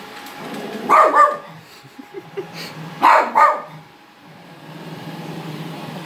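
Small dog barking at a robot vacuum: two quick double barks, the first about a second in and the second about two seconds later, over a steady low hum.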